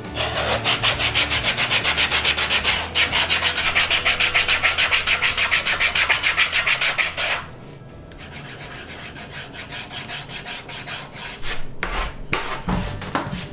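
Sanding block rubbed back and forth along a small carved wooden piece, in quick, even scraping strokes. The sanding stops about seven seconds in, and a few light knocks follow near the end.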